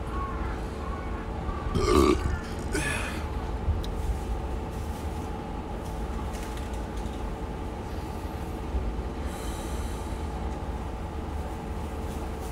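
A man burps loudly about two seconds in, followed by a shorter vocal sound, over a steady background hum.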